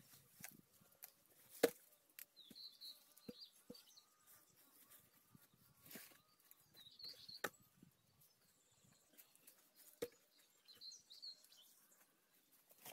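Quiet outdoor ambience: a small bird chirps in short bursts every few seconds, with scattered faint clicks and knocks, the sharpest one about a second and a half in.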